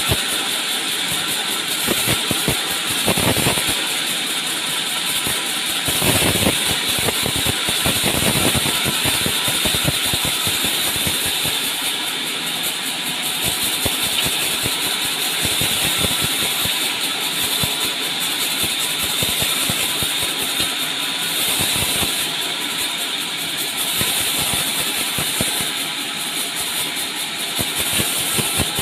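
Large vertical band saw of a sawmill headrig running steadily, its blade cutting through a log on the carriage, with a constant high hiss.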